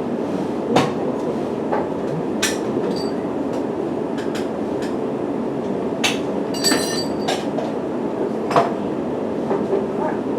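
Steady low rumble of a vehicle in motion, with scattered clicks and knocks and a brief high squeal about two-thirds of the way through.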